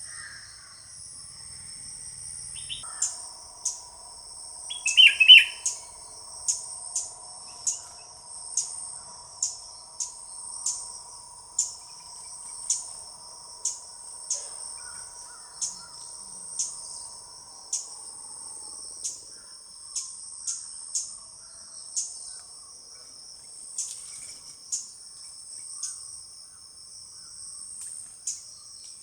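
Steady high-pitched drone of an insect chorus, with short sharp bird chirps repeating about once a second. A louder burst of bird calls comes about five seconds in.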